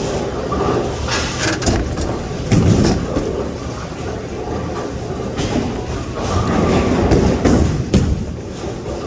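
Bowling alley lanes: the low rolling rumble of bowling balls travelling down the lanes, broken by several sharp clatters of pins being struck.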